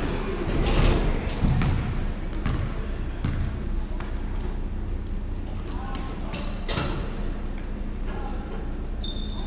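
Basketball being dribbled on a hardwood gym floor, irregular sharp bounces, with short high squeaks of sneakers on the boards and players' voices.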